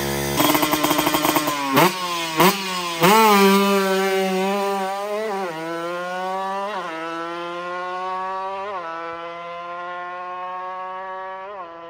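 Two-stroke Kawasaki Ninja drag bike launching and accelerating flat out: the engine note climbs through each gear and drops at every upshift, about seven shifts, growing fainter as the bike runs away down the strip.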